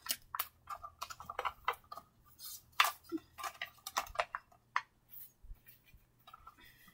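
Trading cards and a small cardboard box being handled by hand: an irregular run of light clicks, taps and rustles.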